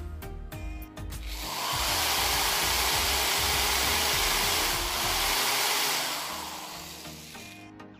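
Electric drill running, its thin twist bit boring a hole into a soft caxeta-wood lure body; the drill starts about a second and a half in, runs steadily for about four seconds, then winds down. Background music plays under it.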